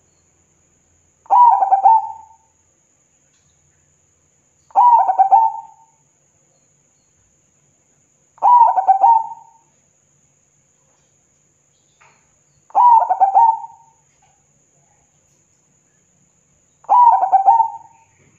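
Zebra dove (perkutut) cooing: five rolling coo phrases, one about every four seconds, each a quick run of notes lasting about a second.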